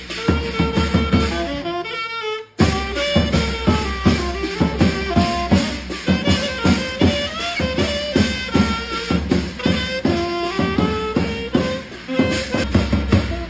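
A saxophone plays a lively melody over a steady beat on a hand-held drum with clashing cymbals. The music breaks off for a moment about two and a half seconds in, then carries on.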